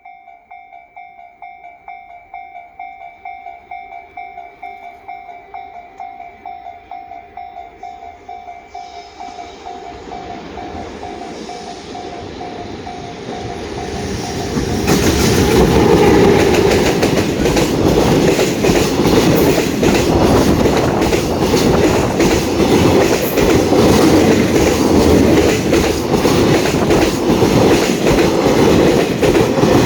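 Level-crossing warning bell ringing in a steady pulsing beat while a JR Freight container train's noise swells; about halfway through the train reaches the crossing and passes close by, its wagons clattering over the rail joints.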